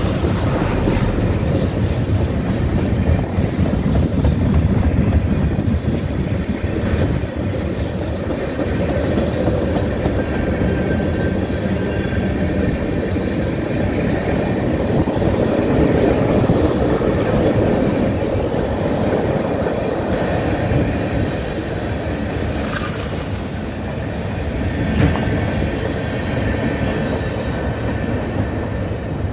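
Freight train's tank cars rolling past close by: a steady rumble of steel wheels on rail with occasional clacks over rail joints. A thin, high wheel squeal runs through the middle stretch. The sound eases slightly near the end as the last cars move away.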